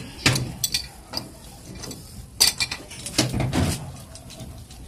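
Pipe wrench gripping and turning a threaded metal fitting on a deep-well pipe: a string of irregular sharp metal clicks and clinks.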